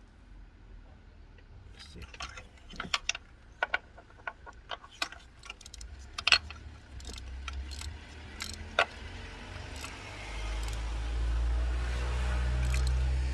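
Metal hand tools clinking and clicking in a string of irregular sharp knocks as they are handled, followed near the end by a steady low rumble that builds up and becomes the loudest sound.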